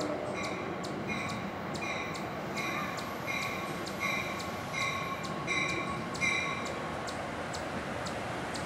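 A warning bell dinging evenly about once every 0.7 seconds and stopping about six seconds in, over the rumble of an approaching NJ Transit commuter train.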